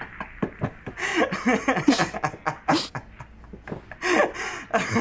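A young man laughing in repeated short, breathy bursts, the loudest about four seconds in.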